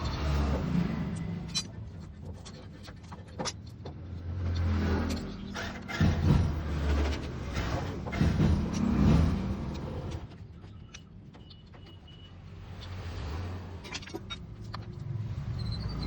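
Hero HF Deluxe motorcycle's single-cylinder engine running and being revved up and down several times, with clicking, rattling chain noise over it: the chain noise problem under diagnosis.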